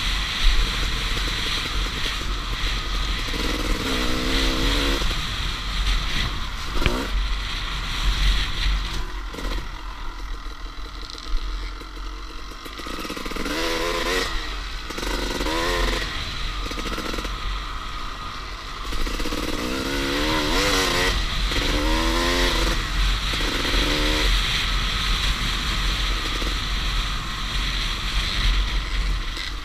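Suzuki RM 250 two-stroke dirt bike ridden hard, its engine revving up again and again as it pulls through the gears, the pitch climbing and dropping back at each shift. Heavy wind rumble on the helmet camera's microphone runs under it.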